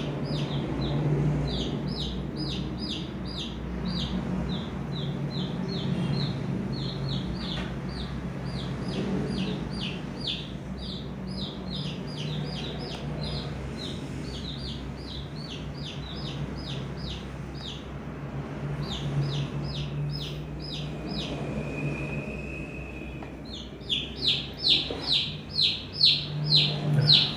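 Chicks peeping: a continuous run of short, high chirps, several a second, growing louder near the end, over a low steady hum.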